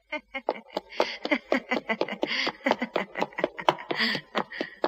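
Quick, irregular patter of a small child's running footsteps, mixed with short breathy giggles.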